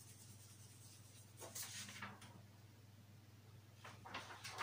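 Faint scratching of a pencil colouring in on a paper worksheet, then a light rustle of paper as the sheet is picked up near the end.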